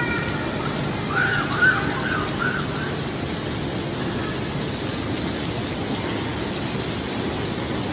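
Steady rushing and splashing of water in a busy water-park pool, with a few short high-pitched children's squeals and shouts one to two and a half seconds in.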